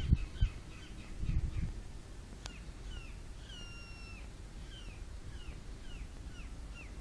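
A bird calling over and over in short downward-sliding notes, about two a second, with one longer drawn-out call near the middle. A low rumble on the microphone is loudest in the first two seconds, and there is a single sharp click about two and a half seconds in.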